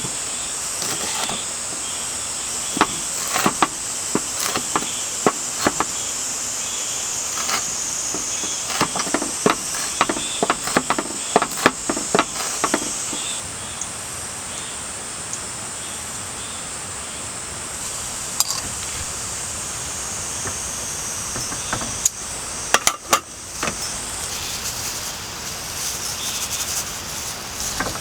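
Cicadas and other insects shrilling steadily in the forest, with a run of sharp knocks and taps through the first half and a couple more near the end.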